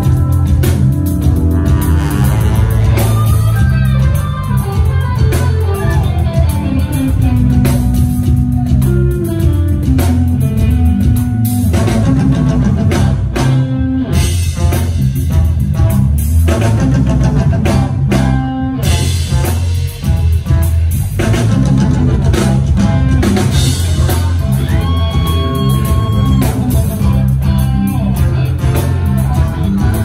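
Live rock band playing an instrumental passage, with guitar over bass and a drum kit keeping a steady beat.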